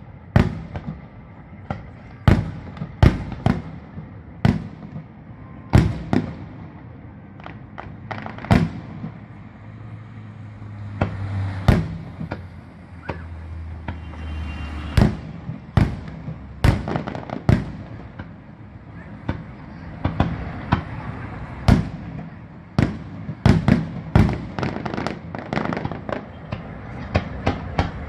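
Fireworks salute shells bursting overhead: a long, irregular series of sharp bangs, some in quick clusters, each ringing out in a short echo.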